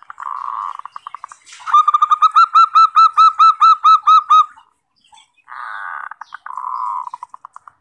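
Zebra dove (perkutut) song: a buzzy, rolling coo that breaks into quick pulses, then a run of about a dozen clear, ringing notes at roughly four a second. After a short pause, another rolling coo follows, trailing off in quick pulses.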